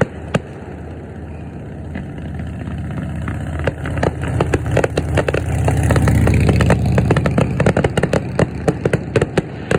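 A vehicle's engine passing close by, building to its loudest about six to seven seconds in and then easing off, with fireworks cracking and popping throughout.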